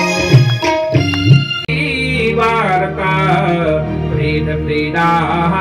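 Devotional bhajan music: tabla strokes over sung and played notes, then an abrupt edit cut about a second and a half in to a singing voice over steady musical accompaniment.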